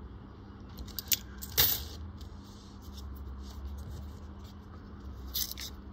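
Australian one-dollar coins clinking against each other as they are handled, a few short metallic clinks with the sharpest about a second and a half in and another cluster near the end, over a steady low hum.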